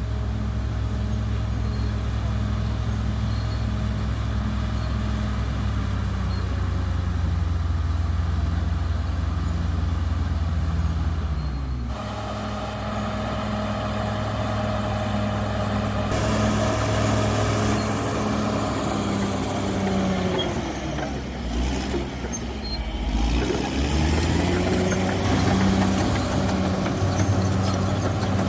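CAT D6R XL bulldozer's diesel engine running steadily under load. About three-quarters of the way through, its note drops and then climbs back up as the engine is throttled down and up again.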